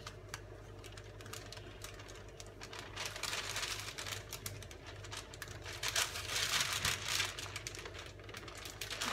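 Baking paper crinkling and rustling in irregular crackles as it is used to roll up a chocolate sponge, over a steady low hum.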